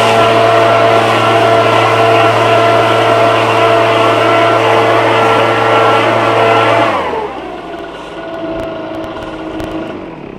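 Echo PB-770T two-stroke backpack leaf blower running at full throttle, a steady engine note over a strong rush of air. About seven seconds in the throttle is released and the engine winds down to idle.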